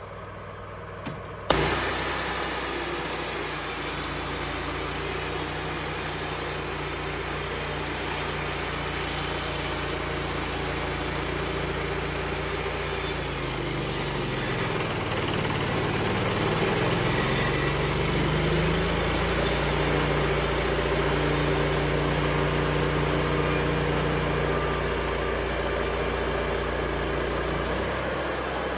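An engine running steadily, starting abruptly about a second and a half in; its pitch sags for a few seconds midway, then comes back up.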